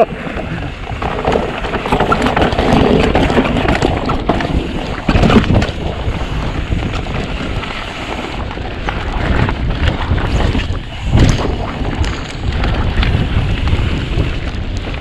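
Wind rushing over the microphone while a downhill mountain bike runs over rough trail, tyres and frame rattling, with a few harder knocks about five and eleven seconds in.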